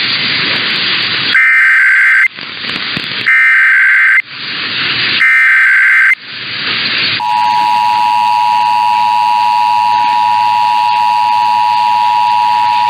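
Emergency Alert System SAME header: three bursts of warbling data tones, each just under a second long and about a second apart, with radio hiss between them. About seven seconds in, the two-tone EAS attention signal starts and holds steady.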